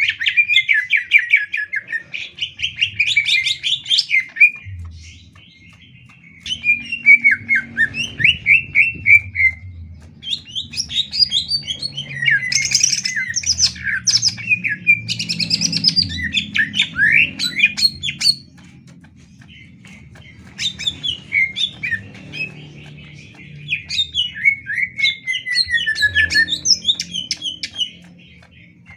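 Greater green leafbird (cucak ijo) singing. It gives loud, varied phrases of rapid chirps, trills and sliding whistles, separated by short pauses.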